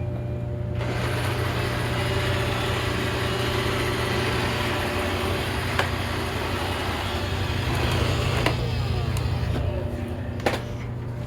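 Robot vacuum cleaners running: a steady motor hum with a rush of brush and suction noise that starts about a second in and fades near the end, and a few sharp knocks.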